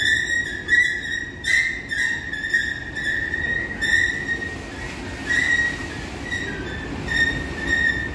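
Escalator squealing as it runs: a steady high squeal that wavers in strength, with short bursts of clicking every half second or so. It is an abnormal noise from an escalator only hours into service.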